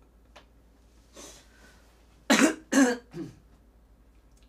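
A woman coughing: a short breath, then two loud coughs close together and a softer third.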